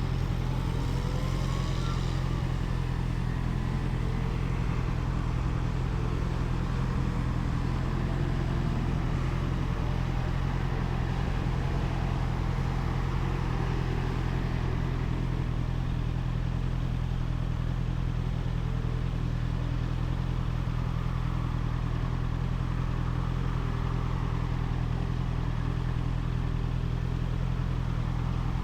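Honda CBR650R's inline-four engine on its stock exhaust, running at fairly steady revs while riding, with a steady hum of road and wind noise over it.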